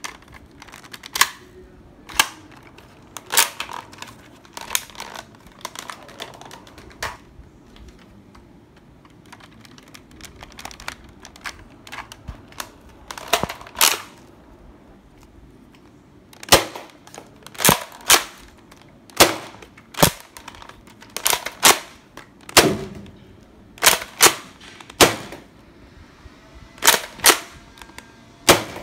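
Nerf Rival Roundhouse foam-ball blaster being fired again and again: sharp snapping shots, many in quick pairs about a second apart, coming faster in the second half.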